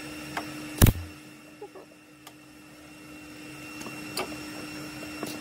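Steady electrical hum with a thin high whine, broken by one sharp knock about a second in and a few faint ticks later.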